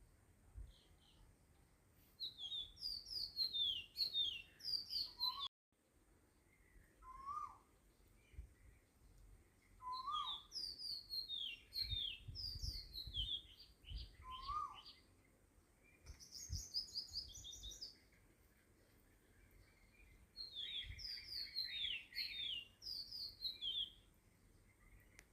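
Small birds chirping in repeated bouts of quick, falling high notes, with short pauses between the bouts and a brief dropout about five and a half seconds in.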